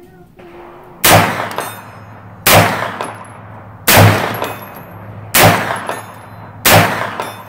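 Five deliberate 9mm shots from a CMMG Guard MkGs pistol-calibre carbine, spaced about a second and a half apart and fired at steel targets 100 yards out. Each shot trails off in a short echo.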